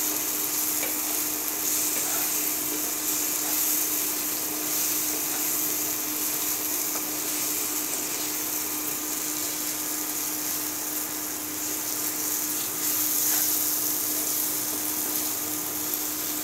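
Onion-tomato masala with ground spices sizzling in hot oil in a nonstick kadai as it is stirred with a spatula, with a few light scrapes. A steady low hum runs underneath.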